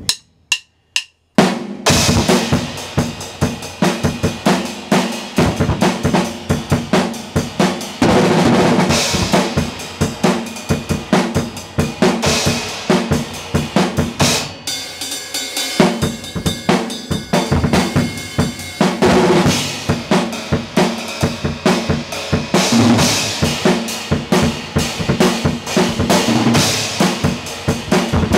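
Acoustic drum kit played fast and hard, with bass drum, snare, toms and cymbals in a dense, unbroken stream of strokes. A few separate sharp hits come first, and the full playing starts about two seconds in.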